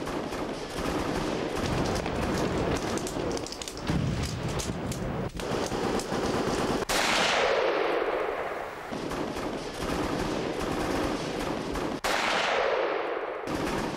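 Battle soundtrack of rapid automatic gunfire, dense and continuous, with two sudden louder blasts about five seconds apart, each trailing off in a rushing noise that falls in pitch.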